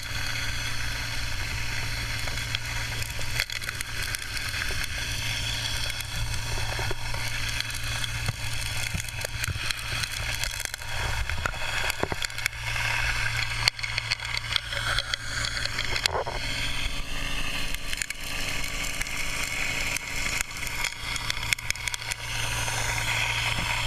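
Gold suction dredge working, heard underwater at the intake nozzle: a steady low hum from the dredge's pump engine, with gravel and small stones clicking and crackling as they are sucked into the nozzle.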